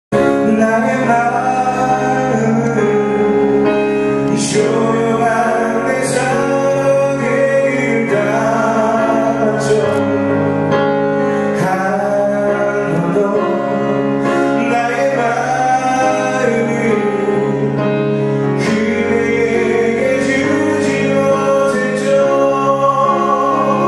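Live performance of a Korean pop ballad: a male singer's amplified voice, with vibrato, over keyboard and band accompaniment.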